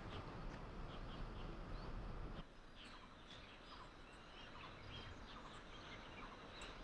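Faint rural outdoor ambience with small birds chirping now and then; a low background rumble drops away about two and a half seconds in.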